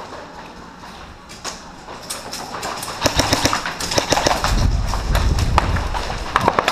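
Airsoft electric rifle firing rapid bursts of sharp clicking shots, starting about three seconds in and running in several bursts to the end, mixed with heavy low thumps of a player moving.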